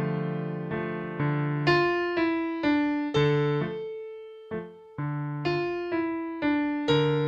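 Background music: a solo electric piano playing slow chords, about two notes a second, each struck and fading away over low held bass notes.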